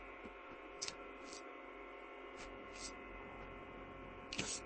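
Faint steady electrical hum made of several fixed tones, with a few soft short clicks scattered through it.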